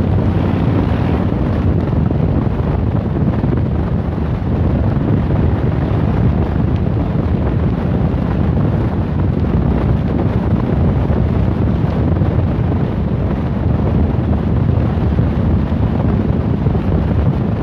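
Steady wind noise buffeting the phone's microphone on a moving motorcycle, with the motorcycle's engine and road noise running underneath.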